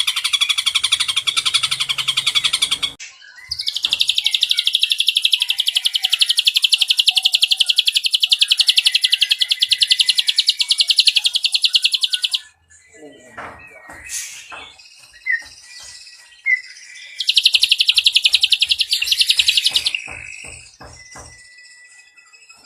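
Ashy drongo singing long, rapid trills of fast-repeated high notes, three runs of several seconds each, the middle one about nine seconds long. Between the second and third trills come a few seconds of softer, scattered calls and chips.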